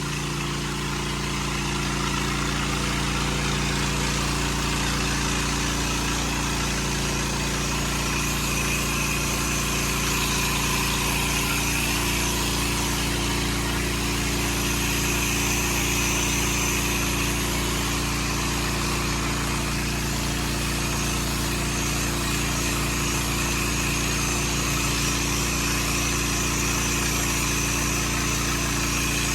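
Pressure washer's engine running steadily at an even pitch, with the steady hiss of the water spray over it.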